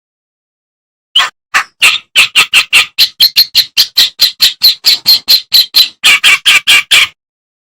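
Kerak basi (reed warbler) singing: a fast run of short, harsh notes, about five a second, starting a little over a second in and stopping shortly before the end. The notes sit higher in the middle of the run and drop lower again for the last few.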